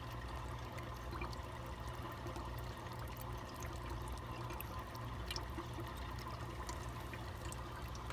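Aquarium water trickling and splashing steadily, as from a filter return, over a steady low hum, with a few faint ticks.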